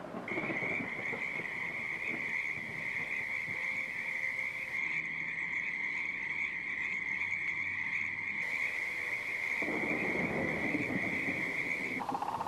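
Artificial animal-sound background track: a steady high-pitched tone held for about twelve seconds over a low rumbling texture, giving way near the end to a lower, rapidly pulsing call.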